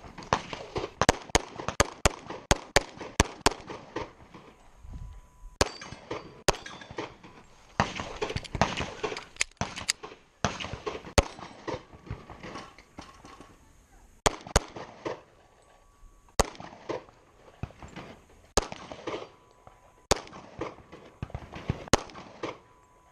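Semi-automatic pistol firing: a fast string of about eight shots in the first few seconds, then more shots in quick pairs and singles with short pauses between them.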